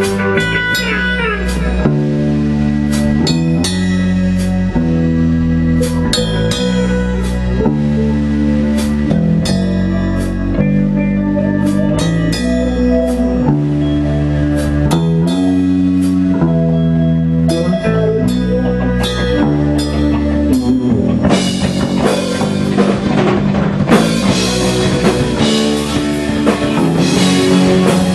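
Indie rock band playing: electric guitar chords changing in a repeating pattern over bass and a drum kit. About three quarters of the way through the band fills out and gets louder, with a steady wash of cymbals.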